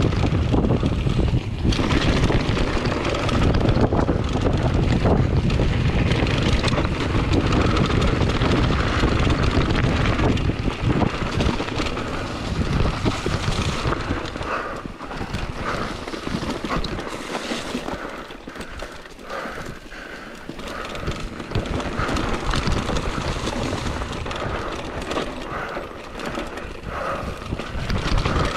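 Wind buffeting the microphone of a mountain bike descending a dirt and gravel trail, with tyre noise on the dirt and the bike rattling over bumps. The rumble eases for a few seconds past the middle, then picks up again.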